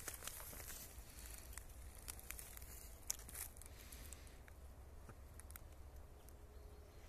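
Faint scattered crackles and clicks of someone shifting on dry leaf litter, mostly in the first half, over a low rumble on the microphone.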